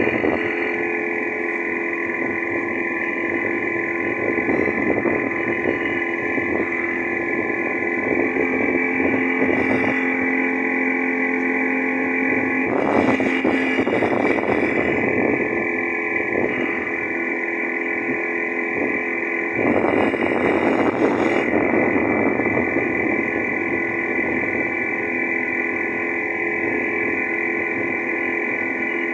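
Boat motor running steadily under way, a constant mix of held tones, with two louder rushes of noise, one about halfway through and another a little later.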